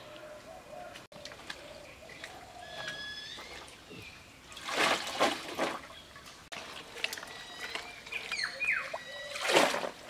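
Pond water sloshing and splashing as a plastic basket of chopped taro stolons is swished and rinsed in it, in two loud bouts, one about five seconds in and one near the end.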